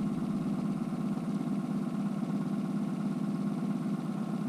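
Boat's outboard motor idling at trolling speed: a steady, even engine hum.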